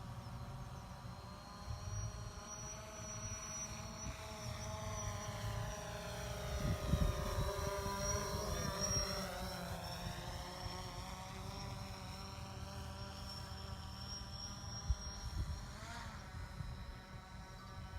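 DJI Phantom quadcopter flying past: its propeller whine drops in pitch as it goes by, loudest about eight seconds in, over a low rumble.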